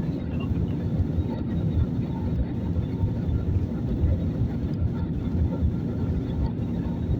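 Steady low rumble of engine and airflow noise inside the cabin of an Airbus A321neo in flight.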